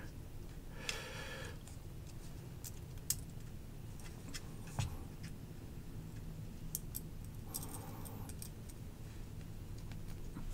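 Faint small metal clicks and rubbing as the scale screws of a Spyderco Smock folding knife are loosened and handled with a screwdriver, a few separate clicks over a low steady hum.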